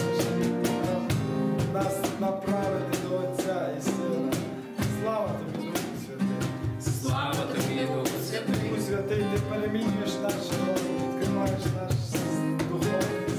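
Background music: held chords over a regular plucked or strummed beat, with a melody line that bends in pitch around the middle.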